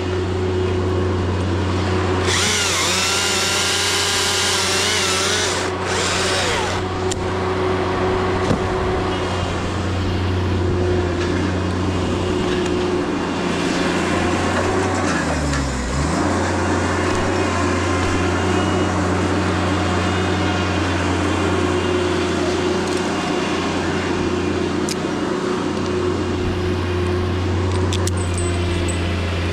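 Gas chainsaw running at high revs as it cuts, with a harsher, brighter stretch a couple of seconds in and a brief sag in pitch about halfway through.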